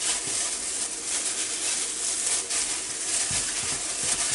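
Raw chicken wings, sprayed with cooking spray and coated in seasoning rub, being stirred and tossed by hand in disposable plastic gloves in a glass bowl: a steady wet squishing and rustling.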